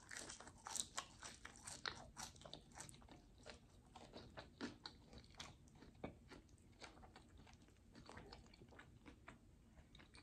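A person chewing a mouthful of chicken sandwich: a quick run of small crunches and wet mouth clicks that grows sparser after about four seconds.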